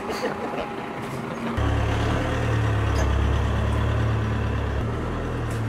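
Low, steady rumble of a vehicle engine that sets in suddenly about a second and a half in and eases off near the end.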